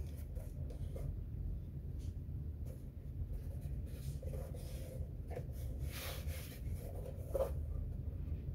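Handling noise from turning a Kunkin KP184 electronic load over by hand: fingers rubbing and sliding on its painted metal case with light taps and small knocks, the longest scrape about six seconds in, over a low steady hum.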